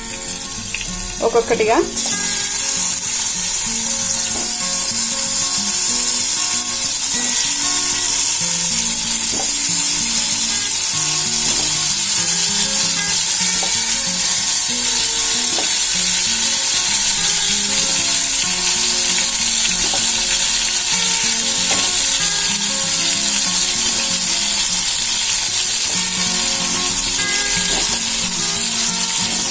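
Hot oil sizzling steadily in a nonstick kadai as stuffed small brinjals (gutti vankaya) are put in one by one to fry with cumin, green chillies and curry leaves; the sizzle gets louder about two seconds in.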